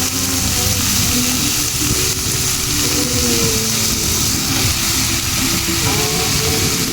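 Food sizzling as it fries in hot oil in a pan, a steady hiss, with faint background music underneath.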